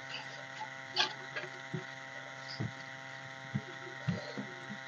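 Faint soft squishes and taps of a hand kneading rice with mashed potato and dal on a steel plate, a few scattered sounds over a steady electrical hum.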